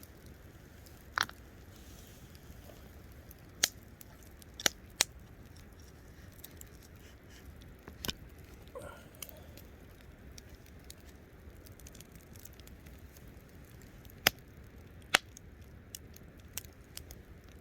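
Wood campfire crackling quietly with occasional sharp pops from the burning wood, at irregular intervals several seconds apart.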